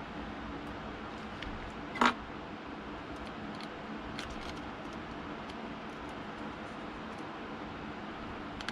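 Small hand screwdriver working tiny screws into a Nintendo Switch Lite: faint scattered ticks of the metal bit and screws, with one sharp click about two seconds in, over a steady low background hum.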